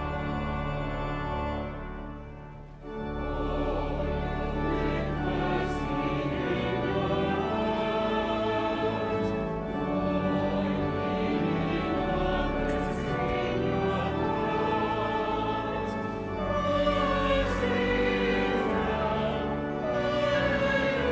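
Choral music: a choir singing with organ accompaniment. The music drops away briefly about two seconds in, then comes back fuller.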